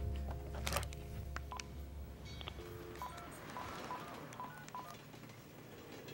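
Mobile phone keypad being dialed: a few clicks, then a run of short key beeps, roughly two a second, one for each number pressed.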